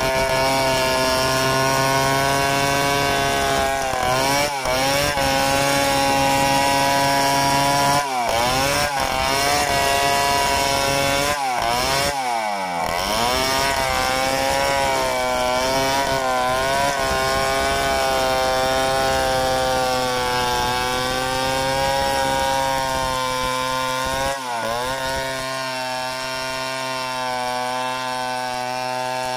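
Two-stroke chainsaw at full throttle, ripping lengthwise through a mahogany log in a freehand milling cut. Its engine note briefly drops in pitch and comes back up several times, most deeply about twelve seconds in.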